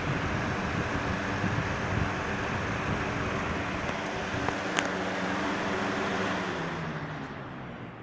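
Box fan running steadily, a low motor-and-blade hum under the rush of air, with one sharp click about five seconds in. Near the end it slows down: the hum drops in pitch and the air noise fades, as a fan does when it spins down after being switched off.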